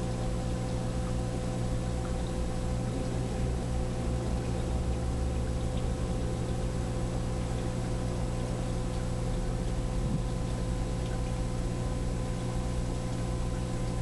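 Aquarium equipment running: a steady low hum with a constant watery hiss.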